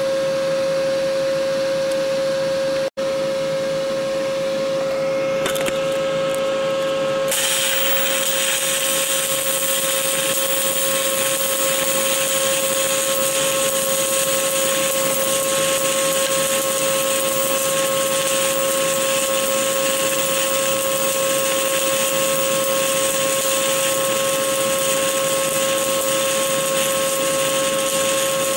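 Stick-welding arc burning an ESAB OK 48.00 7018 low-hydrogen rod in an open root pass: a steady hiss over a constant high hum. The sound drops out for an instant about three seconds in, and the hiss turns brighter about seven seconds in.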